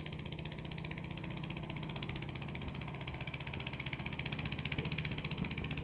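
A small engine running steadily at idle, with a fast, even pulsing.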